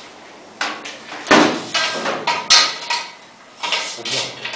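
A hammer tapping a metal guide rail into position against a wall: about five sharp knocks at uneven intervals, each with a short ring.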